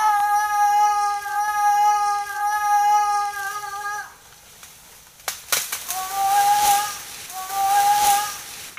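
A high voice holding one long, steady note for about four seconds, then, after a few clicks, two shorter notes at nearly the same pitch.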